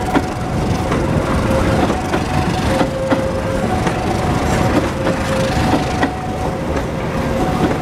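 Passenger coaches rolling past close by, with the wheels clacking over rail joints about once a second over a steady rumble. A two-tone electronic alarm alternates high and low in the background.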